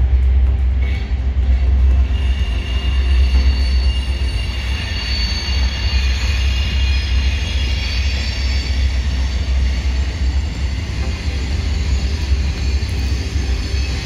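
Train wheels squealing in several high, steady, overlapping tones from about two seconds in, over a deep steady rumble.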